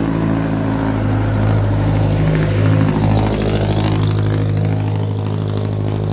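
Jeepney's diesel engine running as it passes close by, loudest about halfway through.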